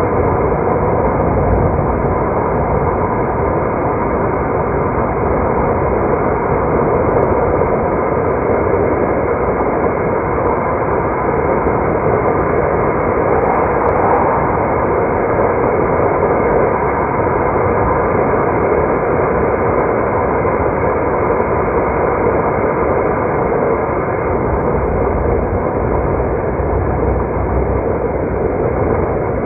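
Steady road and engine noise of a car being driven, unbroken and even.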